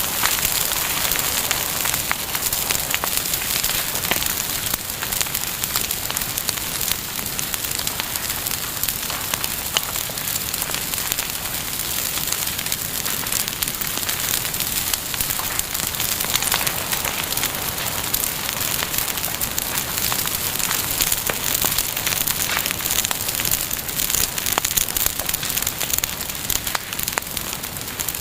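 Bonfire burning, a steady hiss with dense crackling and many small pops.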